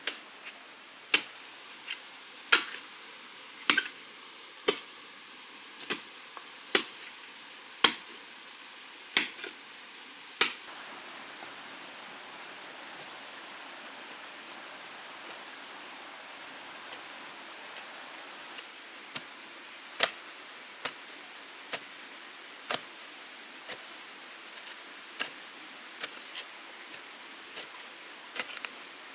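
Repeated sharp strikes of a hand tool on wood, about one a second, over a steady background hiss. They pause for several seconds midway, then resume somewhat lighter. A faint steady high whine comes in about a third of the way through.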